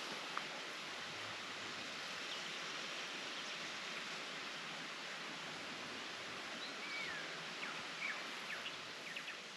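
Steady outdoor rushing noise of open bushland, with a few faint short chirps in the last few seconds.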